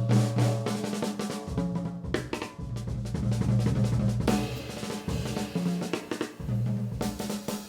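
Instrumental break of a band arrangement of a song: a drum kit with snare and bass drum plays a beat under sustained pitched accompaniment, with no singing.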